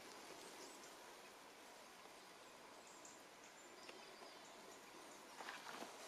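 Very faint forest ambience: a steady soft hiss with a few distant bird chirps, then footsteps on the forest floor starting near the end.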